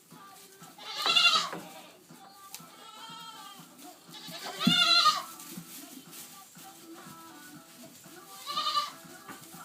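Goats bleating: three loud calls, each about half a second long, about a second in, in the middle and near the end, with a fainter bleat between the first two.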